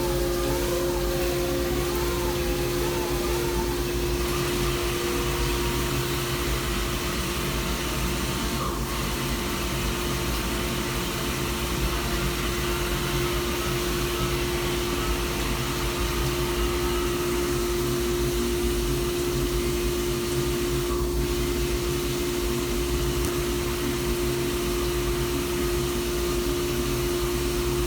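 HAAS CNC turning center running steadily while machining a propeller shaft: one constant tone over an even noise. A second, higher tone fades away over the first few seconds.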